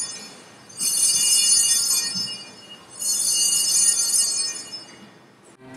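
Altar bells ringing at the elevation of the chalice after the consecration at Mass. The tail of one ring fades, then two more rings follow about two seconds apart, each a bright, high jingle of small bells that dies away.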